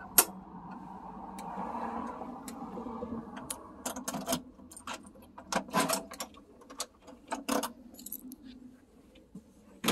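A single tap of an old metal door knocker right at the start, then keys jingling and clicking as a key is worked in an old brass front-door lock and the latch is turned, with a louder click near the end as the door comes open.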